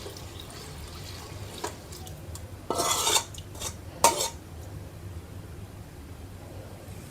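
A spoon stirring rice, soaked dal and water in an electric rice cooker's pot, with a couple of short scrapes and clinks about three and four seconds in, over a low steady hum.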